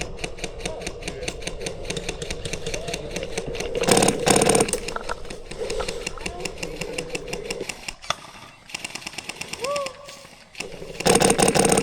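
Airsoft guns firing on full auto: a steady rapid rattle of shots throughout, with two louder, closer bursts, one about four seconds in and one at the very end.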